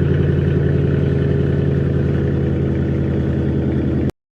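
Dodge Charger R/T's 5.7-litre HEMI V8 idling steadily through its newly refitted exhaust. The sound cuts off abruptly near the end.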